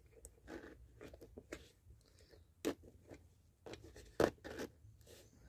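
Metal zipper slider being worked along the teeth of a boot zipper by hand: faint scattered clicks and short scraping rasps, with two sharper clicks about halfway through and again a second and a half later.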